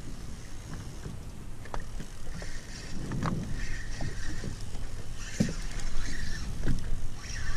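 Small waves lapping and slapping against a boat's hull over a low steady rumble, with a few scattered knocks.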